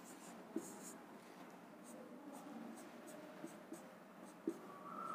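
Whiteboard marker drawing on a whiteboard: faint squeaking and scratching in short strokes, with a couple of small taps.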